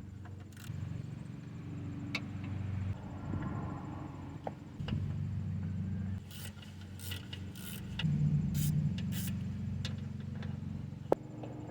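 Hand tools working bolts loose on an engine's timing cover: metal clinks and rattles of socket and bolts, with a run of sharp clinks in the second half, over a steady low hum.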